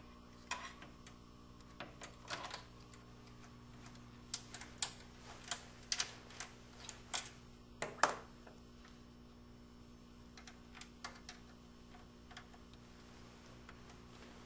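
Scattered sharp clicks and knocks of an AGP video card being handled and fitted into its slot in a PC case, densest about a third of the way in and sparser toward the end. A steady low hum runs underneath.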